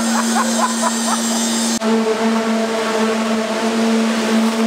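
Concrete-pouring machinery running with a loud, steady hum on one low tone, with a short dip about two seconds in.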